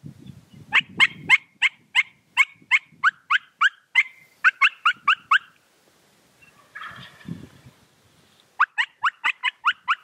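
Wild turkeys yelping: a run of about fifteen short yelps at roughly three a second, each dropping in pitch, then a quicker run of about eight near the end. A few low thumps sound in the first second.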